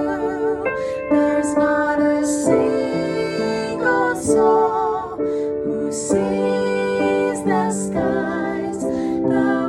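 Women singing a slow song together, with vibrato on held notes, with instrumental accompaniment.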